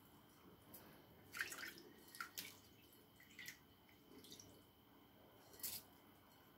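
Faint, scattered drips and soft splats, about half a dozen over a few seconds, as wet washed rice and rinse water fall from a glass bowl into a pot of tomato sauce while a hand scrapes the bowl.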